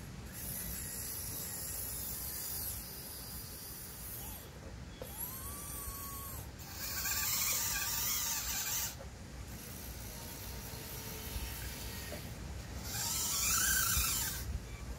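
Small electric motors of an RC-converted Bruder 02467 toy crawler excavator whining in bursts of a few seconds as the boom, arm and bucket move.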